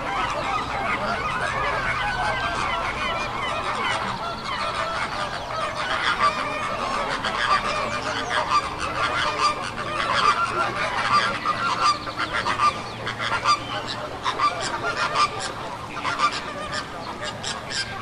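A dense din of many birds honking at once: a flock of greater flamingos calling together, then a king penguin colony, with many overlapping calls that grow louder and more peaked in the second half.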